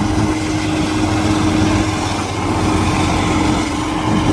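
Corn harvester's engine running steadily: a constant drone with a steady hum.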